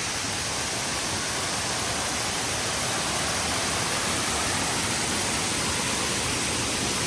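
Steady rushing of a waterfall, growing slightly louder over the stretch.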